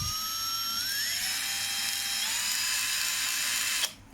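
DCK 12 V brushless cordless drill motor spinning up, its whine rising in pitch in steps as the trigger is squeezed further, then cutting off suddenly near the end.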